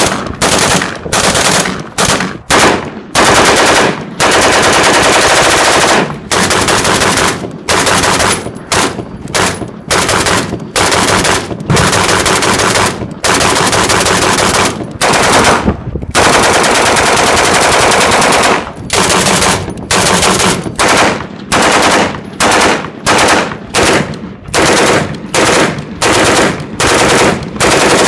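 Rapid automatic gunfire in repeated strings, some short and some running two seconds or more without a break. The sources are an AR-15 rifle being bump-fired and a Polish 1954 Degtyaryov DPM light machine gun in 7.62x54R firing full-auto.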